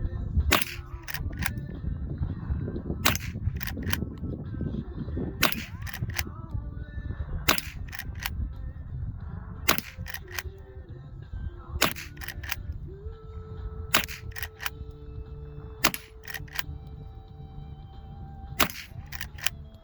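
.22 Henry lever-action rifle firing about nine shots, roughly one every two seconds. Most shots are followed within half a second by one or two quieter clicks of the lever being worked. Background music runs underneath, clearer in the second half.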